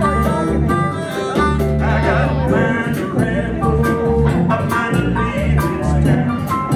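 Live country-style band music with a steady beat, guitar and bass, and a voice singing.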